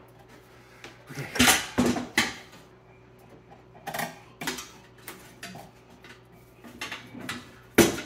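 Hands working on the refrigerator's sheet-metal base bracket, giving scattered sharp metallic knocks and clatter, with the loudest knock just before the end.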